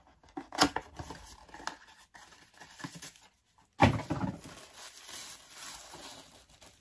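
Small cardboard advent calendar box being opened by hand: scattered rustles and taps of card and packaging, with the loudest, a sudden tear, about four seconds in, followed by crinkling.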